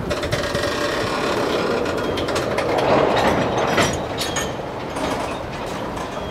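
Freight train of tank cars rolling past, the steel wheels rumbling and clattering on the rails, swelling a little in the middle with a few sharp clacks.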